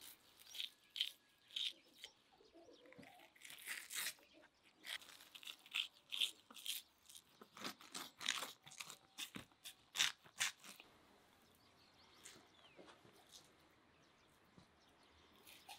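Thin membrane being peeled by hand off a large raw liver: irregular wet crackles and sticky tearing sounds, dense at first and thinning out after about eleven seconds.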